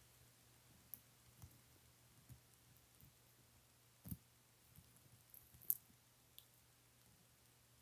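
Two baby Sulcata tortoises biting and tearing curly leafy greens: faint, scattered crisp clicks and small crunches. The strongest are a click with a soft thump about four seconds in and a sharp click just before six seconds.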